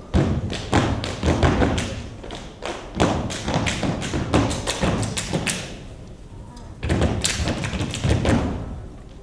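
Heavy thumps and taps in three quick bursts of several strokes each, with short pauses between them.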